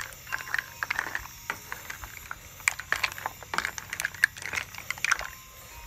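Mussel shells clicking and clacking against one another and the pot as they are stirred in broth with a wooden spatula: an irregular run of sharp clicks and clatters.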